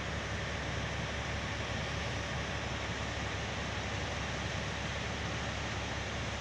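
Steady noise, a low rumble with an even hiss over it and no distinct events.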